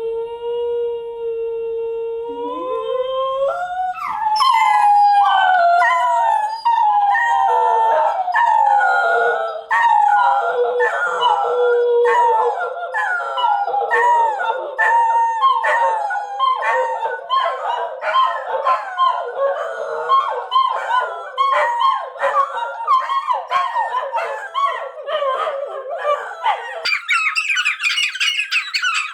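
Dachshunds howling together. One long steady howl rises about three seconds in, then several more dogs join in with overlapping, wavering howls. Near the end only higher, choppier yips and whines remain.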